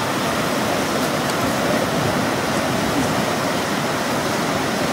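Whitewater rapids rushing steadily: an even, unbroken wash of water noise.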